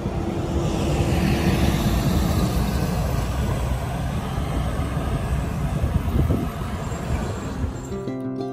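Traffic and road noise heard from a bicycle moving along a city road, a steady low rumble. Acoustic guitar music comes in near the end.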